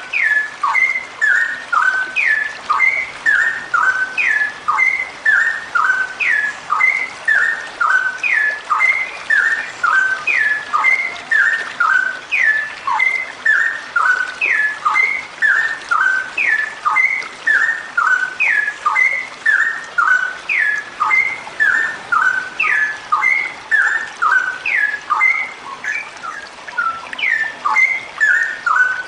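Female straw-headed bulbul (cucak rowo) calling in a long unbroken run. A short whistled phrase repeats about once a second, each a quick down-slurred note followed by a few shorter, lower notes.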